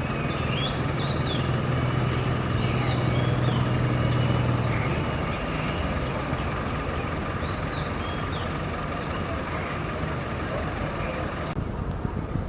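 City street traffic: a vehicle engine running steadily for the first few seconds, then falling away into general traffic noise, with birds chirping over it.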